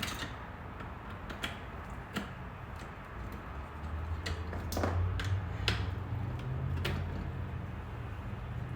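Scattered small clicks and taps as parts of a Tesla Model S door handle are handled and fitted, with a low hum coming in about halfway.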